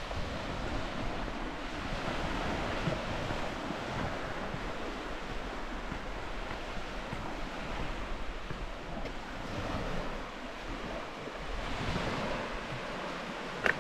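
Sea waves washing ashore, swelling and fading every few seconds, with wind on the microphone. A single sharp click near the end.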